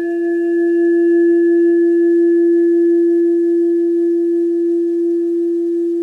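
Singing bowl ringing: one long, steady low tone that swells at first and holds, with fainter higher overtones slowly fading away.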